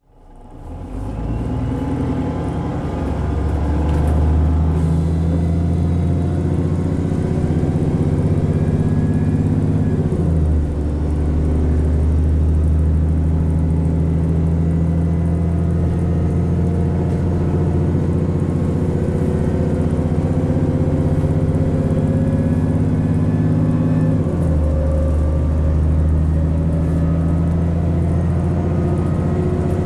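Diesel engine and Voith four-speed automatic gearbox of a VDL DB300/Wright Gemini 2 double-decker bus heard from inside, pulling hard under acceleration while the engine is in limp mode, with a faint rising gearbox whine. The engine note dips briefly twice, about ten and twenty-four seconds in, as the gearbox changes gear.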